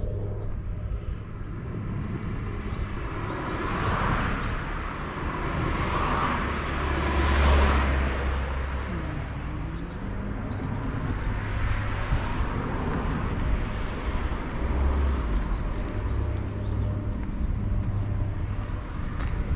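Outdoor ambience with road traffic: vehicles passing one after another over a steady low rumble, the loudest pass about seven seconds in.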